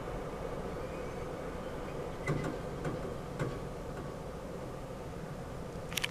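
Railroad crossing gate arms rising after a train, against a steady hiss. A few sharp clicks and clunks come between about two and three and a half seconds in, as the gates reach upright, and another comes near the end.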